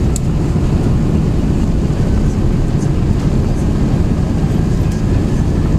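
Airbus A380's four jet engines and airframe heard from inside the cabin during takeoff: a loud, steady, deep rumble with no let-up.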